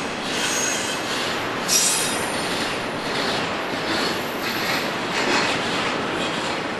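Union Pacific double-stack container freight train rolling past at close range, its steel wheels running steadily on the rails with thin, high-pitched wheel squeals coming and going.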